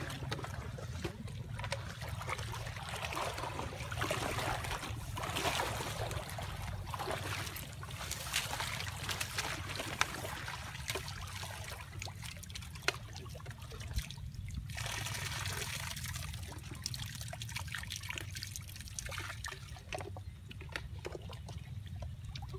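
Water trickling and sloshing as plastic-bottle fish traps are handled and emptied of water and fish into a wire-mesh basket, with light splashing and scattered small clicks and knocks.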